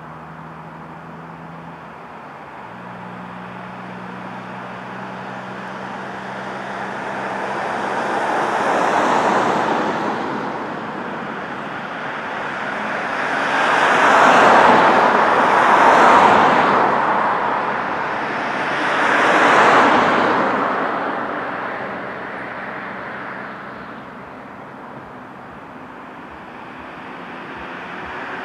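Road traffic: cars passing close by one after another, each a swell of tyre and engine noise that rises and fades. One passes about nine seconds in, two close together around the middle, another shortly after, and the next is coming up near the end.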